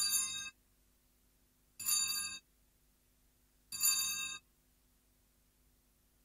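Altar bells rung three times, about two seconds apart, each a short bright jingle, marking the elevation of the chalice at the consecration.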